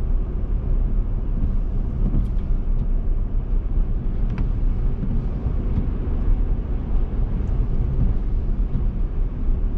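A 2022 Toyota Tundra pickup driving along at steady speed, giving a constant low rumble of engine and tyre noise.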